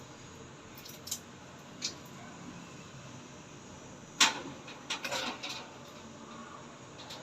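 Scattered short clicks and knocks of handling over a steady hiss: two light clicks in the first two seconds, one loud sharp click about four seconds in, then a quick run of smaller clicks.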